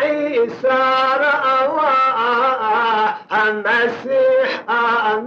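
A man singing a Persian naat, a devotional poem in praise of the Prophet, in long held notes that waver in pitch, phrase by phrase with short breaks.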